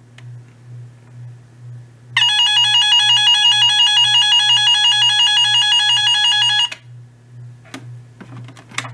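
Radio Shack 12-247A weather alert radio sounding its siren test: a loud, high-pitched electronic alarm tone that pulses rapidly, starting about two seconds in and cutting off suddenly after about four and a half seconds. A couple of small button clicks follow near the end.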